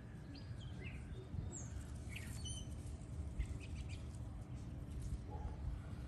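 Small birds chirping, short high calls scattered through the first few seconds, over a steady low rumble.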